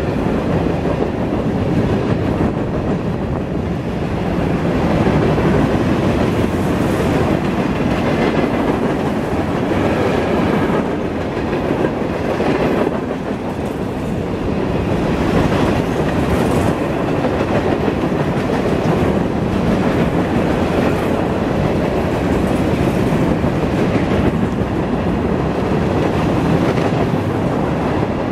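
Empty covered hopper cars of a freight grain train rolling past: steady wheel-on-rail noise, with a few faint knocks along the way.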